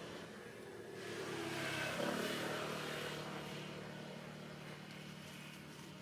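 A motor vehicle passing by: its engine hum swells to a peak about two seconds in, then slowly fades away.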